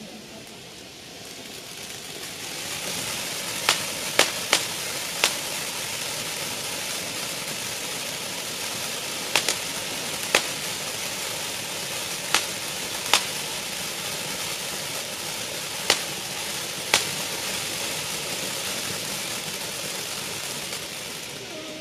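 Firework ground fountains hissing steadily as they spray sparks, growing louder about two seconds in as more fountains burn. About a dozen sharp cracks are scattered through the hiss.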